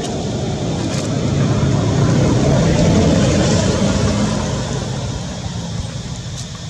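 A motor vehicle driving past, its engine and tyre rumble swelling to a peak about three seconds in and then fading.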